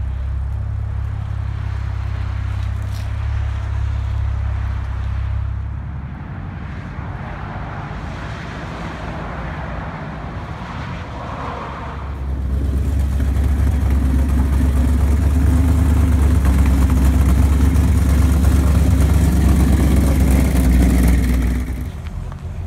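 Cars' engines leaving a car meet: a Porsche 911 Turbo S's twin-turbo flat-six runs with a steady low rumble for the first several seconds, then eases off. About twelve seconds in a much louder, deeper engine rumble takes over and holds for around ten seconds before dropping away near the end.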